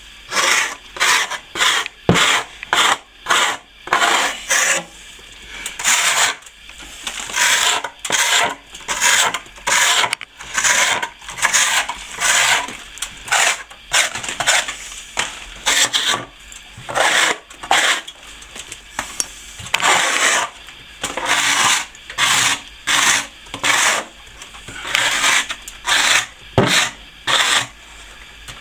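A steel plastering tool scraping over plaster in repeated short strokes, about one or two a second, with brief pauses between runs.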